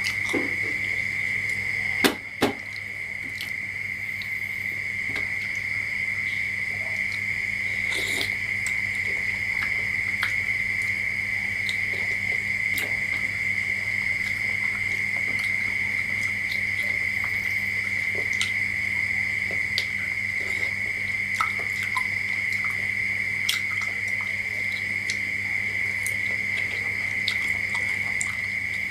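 A loud, steady high-pitched trill over a low hum, with scattered small clicks and smacks; two sharp clicks come about two seconds in.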